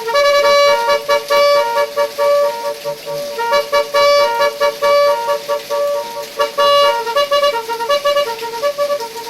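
Multi-tune telolet horn (Termignoni brand, 18 tunes) playing a melody of short and longer held notes that step between pitches.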